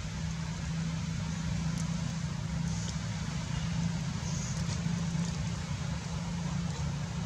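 A steady low mechanical hum and rumble, with a few faint short high chirps over it.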